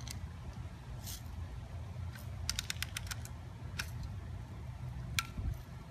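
Daisy Red Ryder lever-action BB gun being cocked: a quick run of clicks midway through, then one sharper, louder click near the end, over a steady low background rumble.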